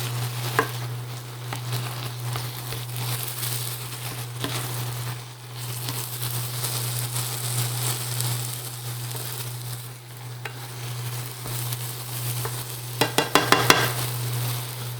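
Black beans with onions and broth sizzling in a pan on an induction cooktop while being smashed and stirred, over a steady low hum. Near the end comes a quick run of clicks and scrapes, the loudest part, as the utensil knocks against the pan.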